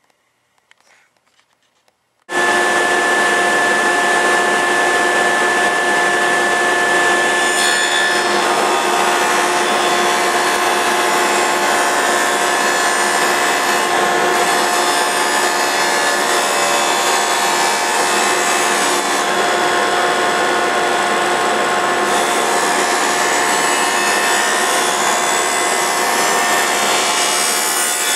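A woodworking power tool running and cutting wood, loud and steady with a constant whine. It starts abruptly about two seconds in, after near silence.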